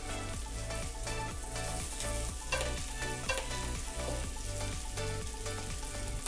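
Pastrami sizzling in a hot frying pan, under background music with a steady beat and a repeating bass line.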